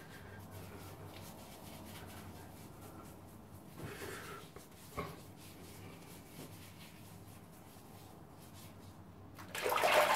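Mostly quiet small room with a faint low hum and soft rubbing as shaving lather is massaged into a beard with the fingers. Near the end comes a short splash of running water.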